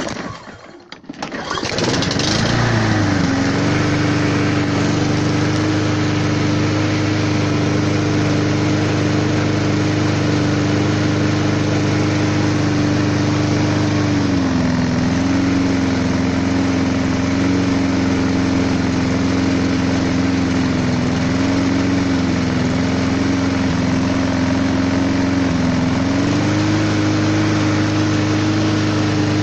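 Mountfield RV150 self-propelled mower's petrol engine being started: a few sputters, then it catches about two seconds in and settles into a steady run. About halfway through it slows slightly for some ten seconds, then picks back up.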